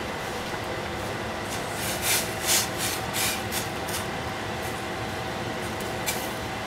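Angel hair pasta boiling in a stainless steel saucepan over a gas flame, a steady rushing hiss. About two seconds in, wooden chopsticks stir the strands in a quick run of splashy scrapes and taps against the pot, with one more tap near the end.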